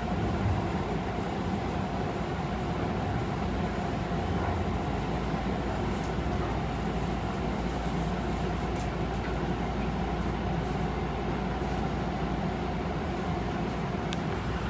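Tobu 50090 series electric train running, heard from inside the carriage: a steady rumble of wheels on the rails and running gear.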